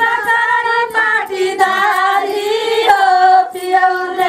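A group of women singing together in long held notes.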